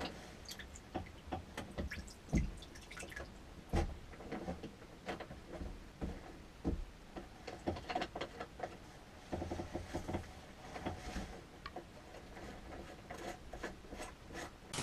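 Seawater dripping and trickling into the hull through the open log through-hull fitting, over small clicks and knocks of the paddlewheel log transducer being fitted back in by hand. A quick run of clicks comes about nine seconds in.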